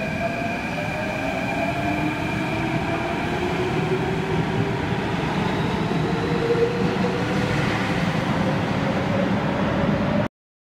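Athens Metro second-generation train accelerating out of an underground station: the drive's whine rises in pitch in stages over the rumble of the wheels, with steady high tones above. The sound cuts off abruptly near the end.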